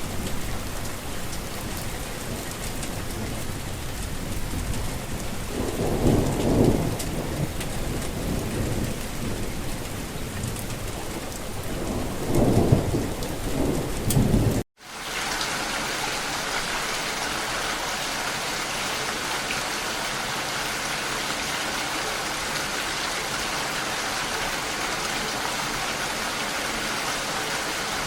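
Steady heavy rain with two rolls of thunder, the first about six seconds in and the second about twelve seconds in. Halfway through it cuts off abruptly. A different, steadier rain picks up, brighter in tone and with no thunder.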